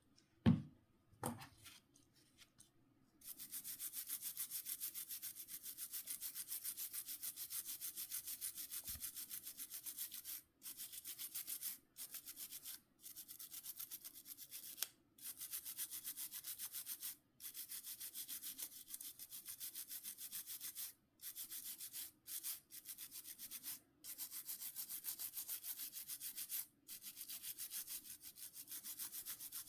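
Two knocks, then rapid scrubbing strokes on a small hard plastic part, starting about three seconds in and stopping briefly several times. The strokes are the parts of a Nokia C5-00 phone being cleaned.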